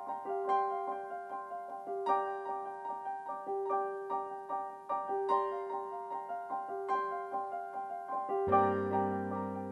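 Background piano music: a repeating pattern of notes over a mid note struck again about every second and a half, with low bass notes coming in near the end.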